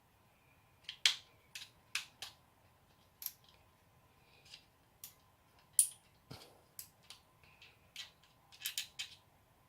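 Sharp, irregular clicks and snaps of hard plastic from a Panasonic ES-SL41 shaver's housing being handled and pried apart, with a quick run of clicks near the end.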